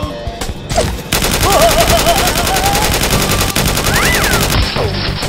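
A long burst of rapid automatic gunfire, a dubbed machine-gun sound effect, starting about a second in and lasting about three and a half seconds, over background music.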